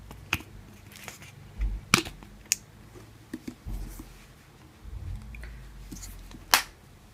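Plastic ketchup squeeze bottle being handled and squeezed: a few sharp clicks and low thumps, then a loud sharp spurt about six and a half seconds in as the ketchup sprays out.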